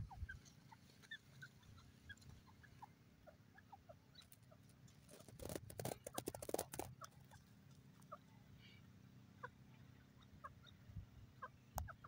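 Grey francolins giving faint, soft clucks and short chip notes scattered throughout, with a brief burst of crackling rustle about halfway through.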